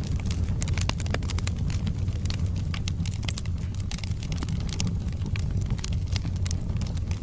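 Wood fire burning in a fireplace: a steady low rumble of the flames with frequent sharp crackles and pops from the burning logs.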